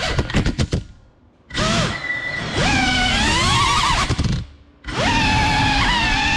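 Whine of a 6S FPV cinewhoop's brushless motors and ducted props in flight. It stutters rapidly for the first second, then twice nearly cuts out as the throttle drops, each time spooling back up with a rising pitch before settling into a steady whine.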